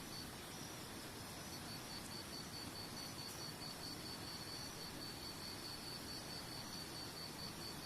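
A cricket chirping in short, evenly repeated high pulses over a steady hiss of running water.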